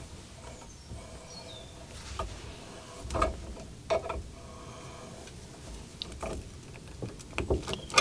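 A few scattered light clicks and knocks of metal hand tools being handled, with a quick cluster of them near the end, over quiet workshop room tone.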